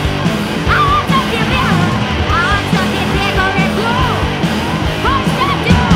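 Live punk rock band playing loud: distorted electric guitar and a full drum kit driving hard, the song stopping right at the very end.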